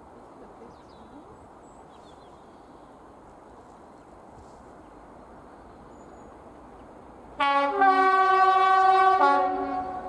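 Class 37 diesel locomotive's two-tone horn sounded by an approaching train, starting about seven seconds in: a short low note, a longer higher note, then the low note again. Before it, only a faint steady outdoor hiss.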